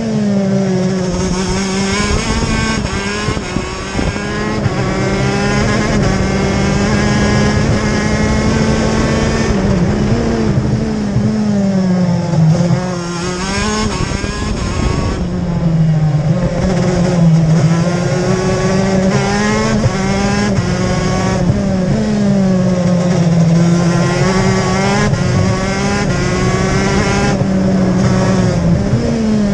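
TM K9C 125cc two-stroke shifter kart engine at full racing pace, heard from onboard the kart. Its pitch repeatedly climbs under acceleration and falls back at gear changes on the six-speed sequential gearbox and under braking for corners.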